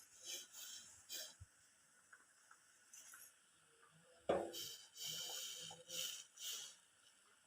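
Boiled herbal decoction (kashayam) being strained and poured into a glass: a series of short, hissy pours and splashes, with one sharp knock about four seconds in.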